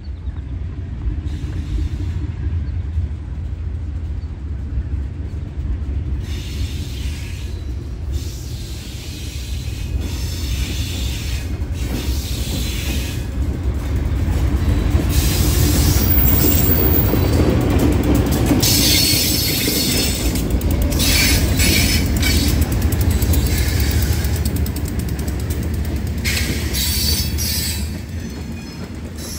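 Diesel-hauled freight train going by: a steady low locomotive rumble with wheels clattering and squealing on the rails, louder through the second half.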